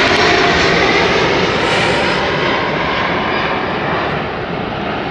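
Loud steady rushing engine noise from a passing machine, easing off gradually over the last couple of seconds.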